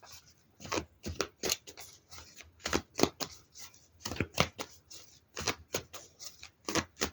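A deck of tarot or oracle cards being shuffled by hand, making a quick, irregular run of light card slaps and clicks.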